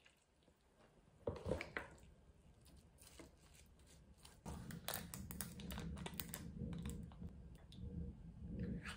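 Metal fork clicking and scraping against a glass container while mashing milk-soaked Weetabix, with a louder brief scrape about a second and a half in and a quick run of light taps in the middle.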